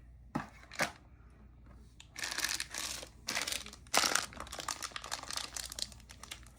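Plastic packaging crinkling and rustling as squishy toys are handled: a couple of sharp clicks, then bursts of crinkling about two seconds in and lighter crackling after.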